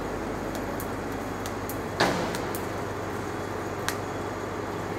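Arc welding overhead on a steel frame: scattered sharp crackling ticks over a steady low machinery hum, with one loud sharp metal knock about two seconds in and a smaller click near the end.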